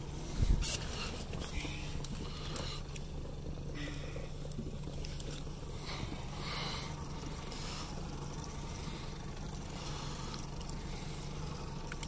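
A steady low motor hum, with a short thump about half a second in and faint scattered clicks and rustle above it.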